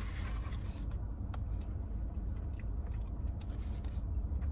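A person chewing a mouthful of food close to the microphone, with a short scrape right at the start and a few faint clicks, over a steady low hum.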